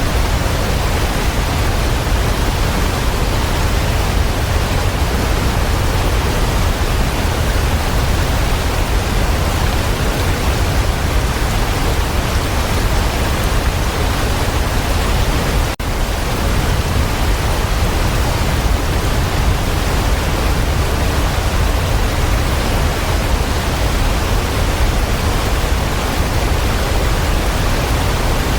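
Waterfall, a steady rushing roar of falling water, heaviest in the low end. It cuts out for a split second about halfway through.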